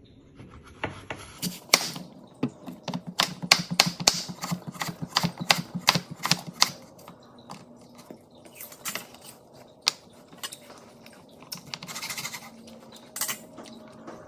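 Cleaver slicing an apple on a wooden cutting board: a quick run of sharp knocks as the blade cuts through and hits the board, thinning to scattered knocks after about seven seconds.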